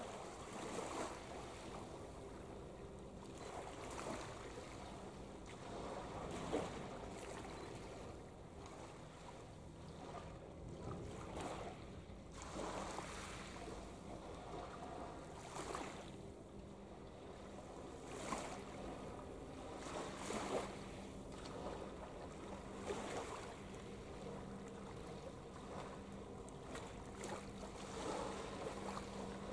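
Steady low drone of ships' engines across the harbour, with rushes of wind and small waves washing in every two or three seconds.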